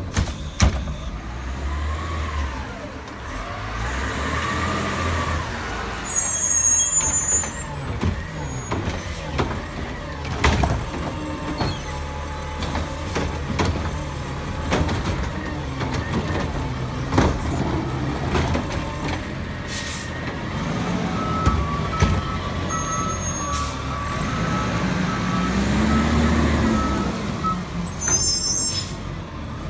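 Diesel garbage truck with a front-mounted cart-lifting arm working at the curb: the engine revs up and down as the hydraulics lift and dump a yard-waste cart, with several short air-brake hisses. A backup beeper sounds for a few seconds past the middle.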